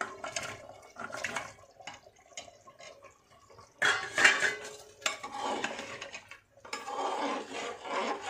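Chicken pieces tipped from a steel bowl into a pressure cooker of curry gravy, with metal clinks and knocks against the pot rim. From about four seconds in, a metal slotted spoon stirs and scrapes through the thick gravy in long wet strokes.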